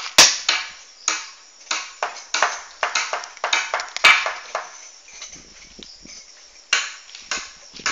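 Irregular series of sharp blows of a tool striking wood, about two or three a second, each with a short ringing tail; they die down past the middle and pick up again near the end.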